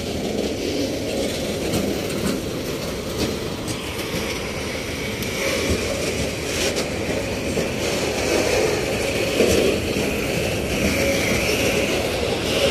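Freight train of open high-sided wagons rolling past at close range: a steady rumble and rattle of wheels on rails, with occasional short sharp clicks.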